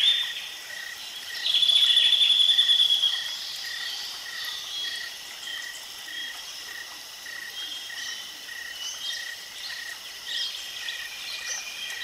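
Birds and insects calling: a short chirp repeated about twice a second throughout, with other chirps above it and a louder trill about a second and a half in.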